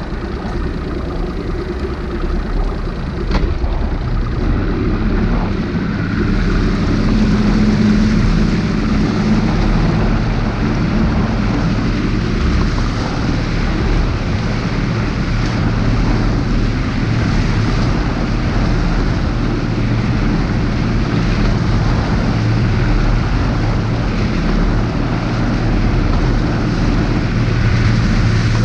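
Mercury Optimax two-stroke outboard motor driving a bass boat, coming up in level over the first few seconds as the boat gets up to speed, then running steadily at speed. Wind and water rushing past the hull mix with the engine.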